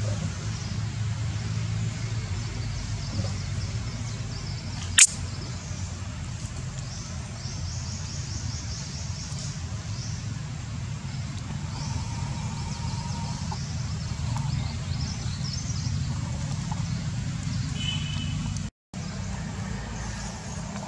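Steady low outdoor rumble with no clear source. A single sharp click comes about five seconds in, faint high rhythmic chirping comes and goes, and the sound cuts out for a moment near the end.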